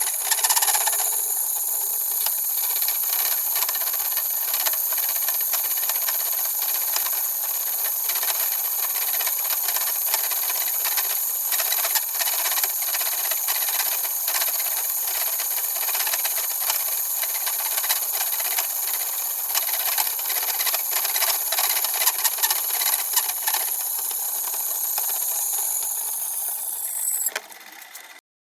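Benchtop metalworking machine tool running under cut: a steady hiss with a high whine and a dense fine crackle. It cuts off suddenly near the end.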